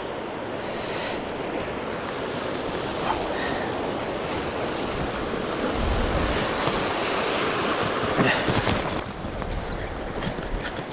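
Sea surf washing against a rocky shore, with wind on the microphone. Near the end come a few light clicks and knocks of gear being handled close by.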